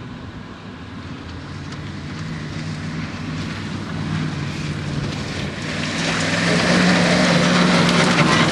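Ford pickup truck's engine running hard at high revs while it power-slides on loose dirt, getting steadily louder as the truck comes closer. About six seconds in a loud rush of noise joins it as the truck reaches the camera with its wheels churning the field.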